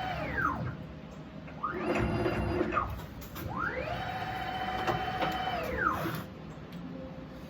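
CNC milling machine's axis motors whining through positioning moves while the probe routine runs. The pitch of each move rises, holds steady and falls as the axis speeds up and slows down. One move ends just under a second in, a short one comes around two seconds, and a longer one runs from about three and a half to six seconds.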